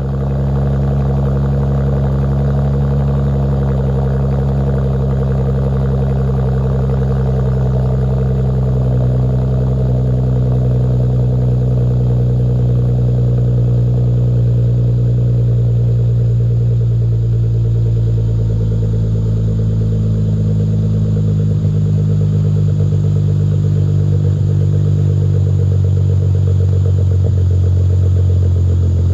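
Dodge Charger's 3.6-litre V6 idling steadily, heard through an aftermarket exhaust with an X-pipe in place of the factory muffler, 2.5-inch piping and Carven mufflers. It gives a low, even tone with a slight growl.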